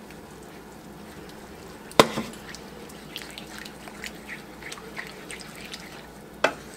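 Cream poured into a skillet of simmering onion-and-broth sauce, then a wooden spoon stirring it, with light scattered ticks of the spoon against the pan. A single sharp knock about two seconds in, and another near the end.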